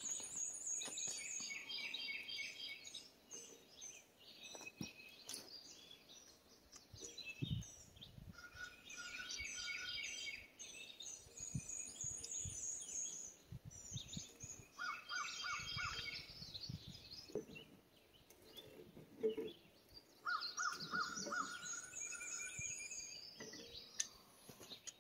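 Songbirds singing in repeated bursts of high chirps and trills, with a few dull knocks about a third and halfway in from handling the brass fittings on a well pressure tank.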